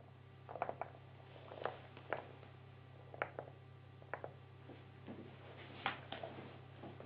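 Faint, steady low hum with small, sharp clicks and ticks scattered at irregular intervals, a few close together about half a second in and again near six seconds.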